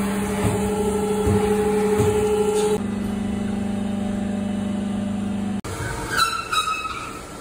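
A motor running steadily with a constant hum. The sound changes abruptly about three seconds in and cuts off suddenly near the end, where a few short high squeals follow.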